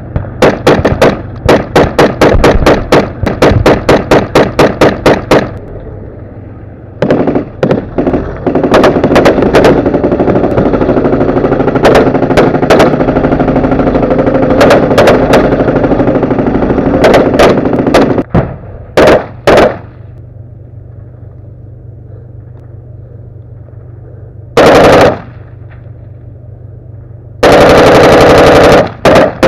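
Close-range automatic gunfire: a rapid string of shots at about four a second, then a long stretch of heavy continuous fire. After a lull with only a low steady hum, there is one short burst, then a longer one near the end.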